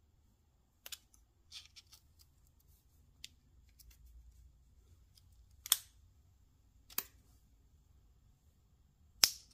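Scattered sharp clicks and light taps from a cordless ratchet and its clip-on direction-lever knob being handled and fitted, with louder single clicks about six, seven and nine seconds in.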